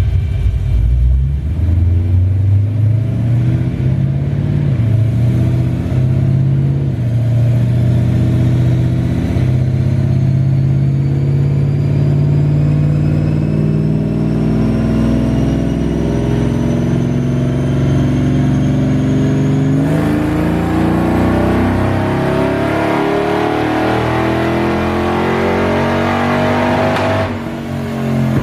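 Ford Lightning pickup's 5.4-litre V8, naturally aspirated without its supercharger, doing a full-throttle pull on a chassis dyno. The revs climb slowly under load, drop at a gear change about twenty seconds in, and climb again faster. Near the end the throttle closes and the revs fall.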